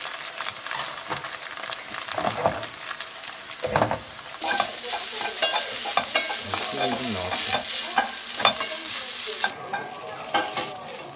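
Imitation crab sticks and onion sizzling as they fry in oil in a wok. About four seconds in, a louder, brighter sizzle of cooked rice and minced garlic frying in a pan, stirred and scraped with a wooden spatula in quick strokes. The sizzling cuts off near the end.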